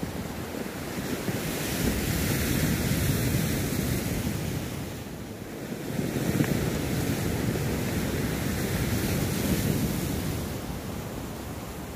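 Sea waves washing against the shore, the rush of surf swelling twice, with wind blowing across the microphone.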